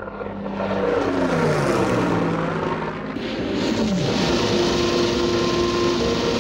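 Piston-engined propeller aircraft flying past, several engine notes overlapping and falling in pitch as they go by, one dropping steeply about four seconds in, then a steadier engine note.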